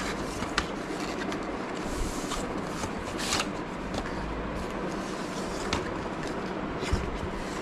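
Cardboard box and paper tray being slid and handled: scraping and rustling with a few light clicks and knocks scattered through, over a steady background hiss.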